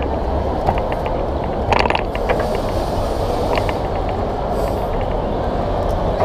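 Steady crowd hubbub in a large, busy hall, with a quick run of small clicks about two seconds in and a few more shortly after.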